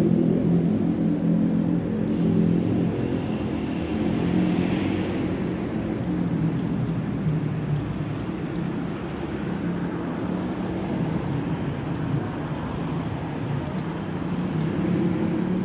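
City street traffic: motor vehicle engines running close by, with a steady low hum that is strongest at first and then eases off. A brief high whistle comes about eight seconds in.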